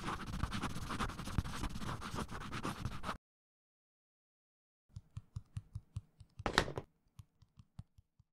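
Fine-tip felt pens scratching densely across sketchbook paper. The sound cuts out about three seconds in, then comes back as scattered short scratches and taps, with one louder scrape a little past the middle.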